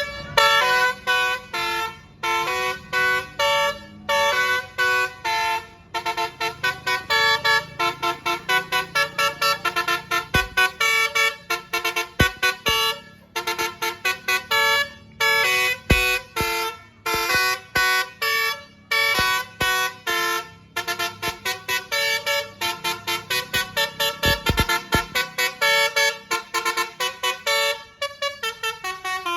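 Basuri multi-trumpet telolet bus horn playing a fast melody of short honked notes, several tones sounding at once, with a few brief breaks between phrases.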